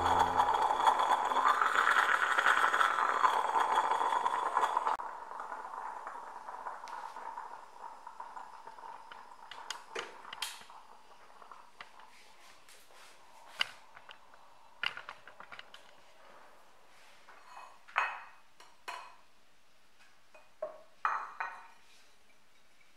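Stainless steel moka pot hissing and sputtering on a gas burner as the coffee comes up. It cuts off suddenly about five seconds in, followed by scattered clinks of dishes and cutlery, the loudest near the end.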